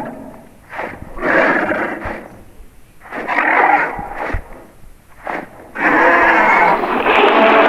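A person making growling, creature-like vocal sound effects in a series of short bursts with brief pauses between, the last one longer and running on.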